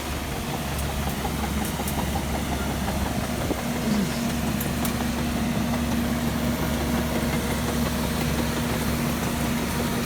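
Caterpillar bulldozer's diesel engine running steadily with a low rumble; about four seconds in a steady higher tone joins it and holds.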